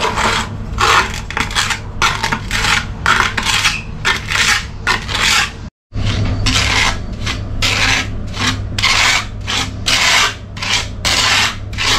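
Trowel scraping and spreading cement-sand mortar in quick repeated strokes, about two to three a second, breaking off for a moment near the middle.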